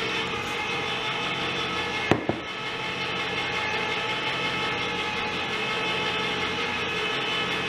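Electric can opener running, a steady motor hum with a sharp click or two about two seconds in.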